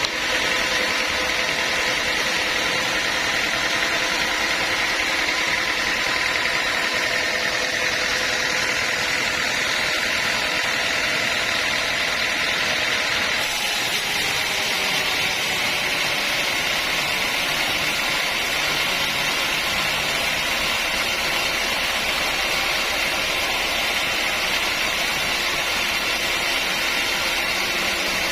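Sawmill machinery running steadily, a loud even mechanical noise with a constant high whine, shifting slightly in tone about halfway through.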